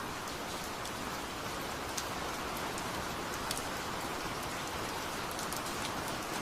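Steady rain falling, an even hiss with a few sharper drop ticks, one about two seconds in and another about three and a half seconds in.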